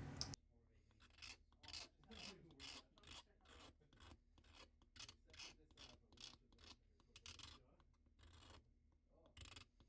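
Faint, repeated rasping strokes of hand filing or sanding on wood, about two to three strokes a second, with a short pause near the end.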